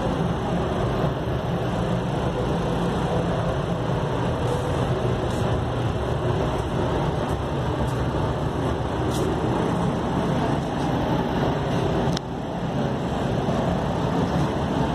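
Paint booth ventilation running: a steady rush of moving air with a low hum underneath, briefly dipping about twelve seconds in.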